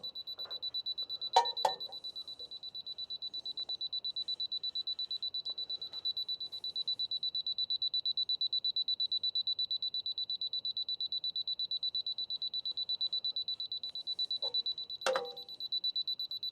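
Laser level receiver beeping rapidly with a steady high-pitched tone, its off-grade signal that the sawmill bed is not quite level at this spot. A couple of sharp clicks come early on and a single knock near the end.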